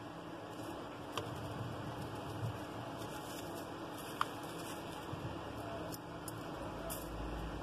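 Faint handling noises as fingers work over an opened smartphone on bubble wrap: a few light clicks and ticks over a steady background hiss, with a low rumble near the end.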